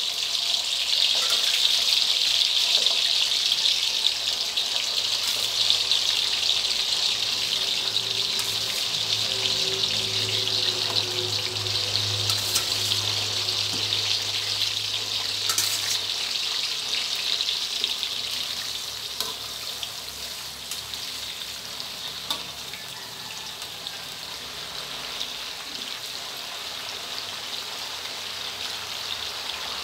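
Isan fermented pork sausages deep-frying in hot oil in a wok, a steady sizzle that eases off after about 18 seconds, with a few light clicks.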